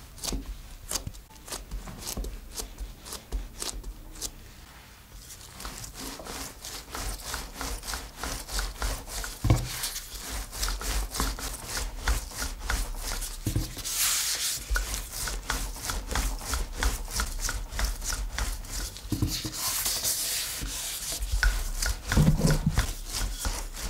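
Wooden rolling pin rolling dough out on a wooden tabletop: a steady run of rubbing with quick light clicks as it goes back and forth. For the first few seconds there are only sparse single taps as the dough is pressed flat by hand.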